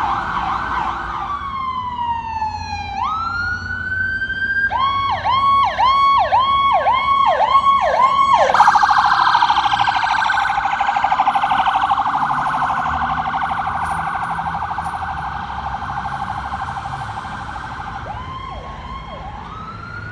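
Electronic ambulance sirens changing tones: a fast yelp, a falling wind-down, a wail that rises and holds, then about six slower up-and-down sweeps. A second ambulance siren then runs a very fast yelp that fades gradually as it moves off, switching near the end to slower sweeps and a rising wail.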